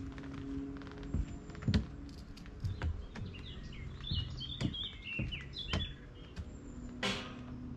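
A hiker's footsteps on a woodland path, about two steps a second, with a bird chirping in quick short notes in the middle. A brief swish, like brushing past foliage, near the end.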